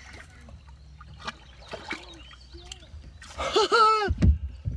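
A man's excited cry, a drawn-out whoop with rising and falling pitch about three seconds in, while he fights a large chain pickerel on a spinning rod. Under it runs a low steady rumble, with a few light clicks of handling noise.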